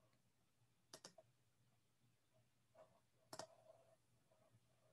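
Near silence broken by a few faint computer-mouse clicks, the clearest about one second in and again about three and a half seconds in.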